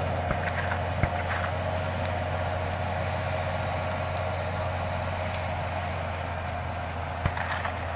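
John Deere 6530 tractor's 130 hp diesel engine running steadily under load while pulling a four-furrow plough through the soil. A couple of sharp clicks sound about a second in and near the end.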